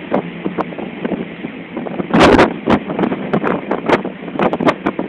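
Strong wind buffeting the phone's microphone on the open deck of a ship in heavy seas. It comes as a steady rush broken by irregular gusts, the heaviest about two seconds in.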